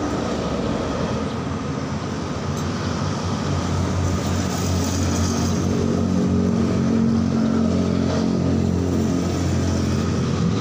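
A motor vehicle's engine running steadily, its pitch and level rising slightly about midway, then settling.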